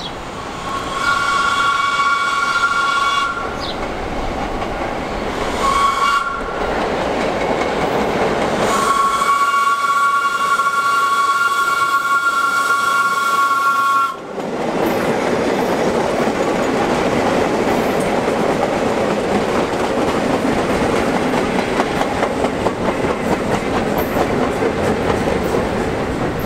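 Vintage New York City subway train sounding its two-tone horn three times as it approaches: a blast of about two seconds, a short toot, then a long blast of about five seconds. It then rolls past close by with a steady rumble and the clatter of its wheels over the rail joints.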